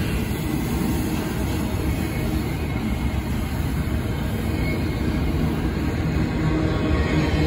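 Double-stack intermodal freight train's well cars rolling past at close range: a steady, low sound of steel wheels running on rail.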